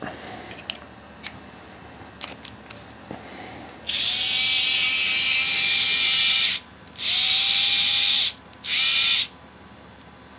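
A few light clicks of handling, then a Vessel cordless ball-grip screwdriver's small electric motor whirring free in three runs: one of nearly three seconds, a shorter one of about a second, and a brief burst near the end.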